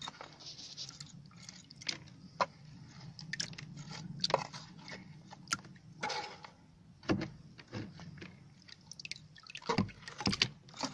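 Black river mud being scraped and prodded out of a small metal cash box with a rusty rod, squelching and dripping into a tub of water, with scattered sharp clicks and taps of the rod against the tin. A cluster of taps comes near the end, over a low steady hum.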